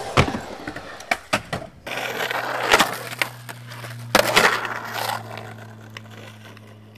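Skateboard sounds: sharp clacks of a board's tail and wheels hitting concrete, then, after a cut, trucks knocking onto and scraping along a concrete curb, then wheels rolling away as the sound fades. A steady low hum runs under the second half.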